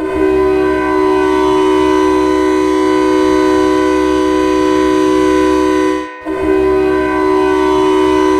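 Hockey goal horn: an air horn blowing a long, steady chord of several notes at once, breaking off briefly about six seconds in and then sounding again.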